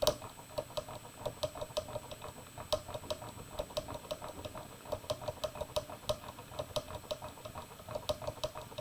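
A permanent magnet pushed back and forth by an oscillator-driven electromagnet at about 3 Hz, making a steady rhythm of small sharp clicks, about six a second.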